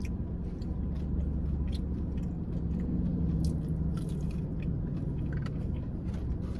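Close-up chewing of a fried chicken strip: soft, irregular crunching and mouth clicks over a steady low background hum.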